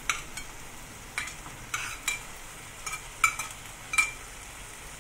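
Wooden spatula knocking and scraping against a ceramic bowl at irregular intervals as cooked rice is pushed out into a wok, several knocks ringing briefly. A soft frying sizzle from the wok runs underneath.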